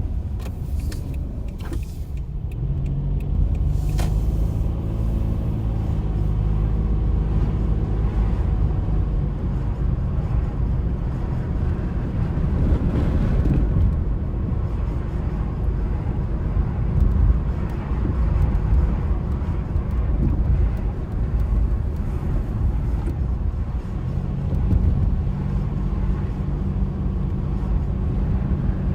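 Car driving, with a low rumble of engine and road noise throughout. A steady engine hum comes in about three seconds in and again near the end, and a few sharp clicks sound in the first few seconds.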